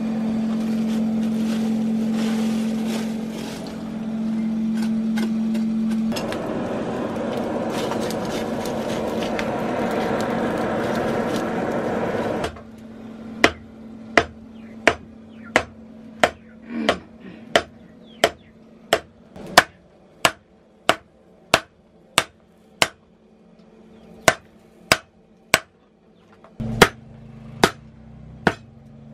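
For the first twelve seconds or so a steady hiss with a low hum, then a blacksmith's hammer striking steel on an anvil in an even rhythm of about three blows every two seconds, each blow ringing sharply, forging a knife blade.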